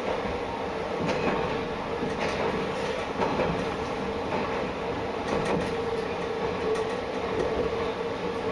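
Diesel railcar running along single-track line, heard from inside the cab: a steady running hum with a constant mid-pitched tone, and scattered clicks from the wheels on the rails.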